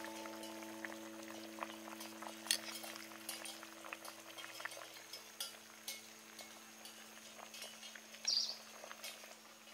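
Clay pot of beef-bone and taro stew simmering, with scattered small pops and clicks as the ladle scoops and pours the sauce, and a brief louder rustle about eight seconds in. A held music chord slowly fades out underneath.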